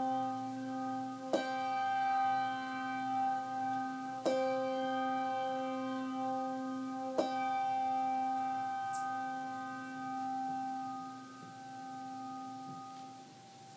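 Slow instrumental music: a single pitched note struck three times, about three seconds apart, each left to ring and slowly die away, the ringing fading out near the end.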